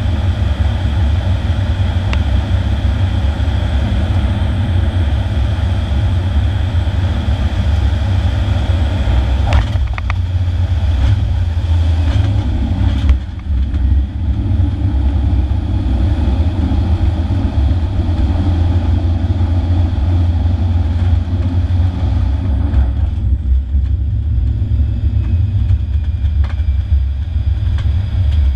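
Cessna 208B Grand Caravan's PT6A turboprop and propeller heard from the cockpit as a loud, steady low drone through the landing. A few knocks come about ten to thirteen seconds in as the wheels touch down, followed by a runway rumble. About 23 seconds in, the higher engine tones drop away as power comes back during the landing roll.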